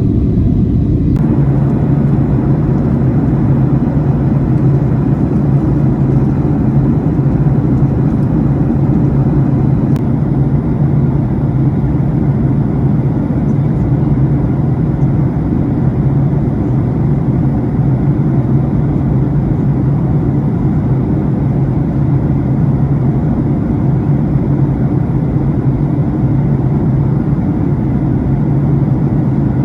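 Airliner cabin noise: the steady drone of the jet engines and rushing air, with a low hum throughout.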